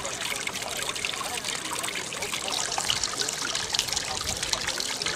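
Small solar-powered fountain pump spraying water up out of a tub, the spray splashing and trickling steadily back onto the water's surface.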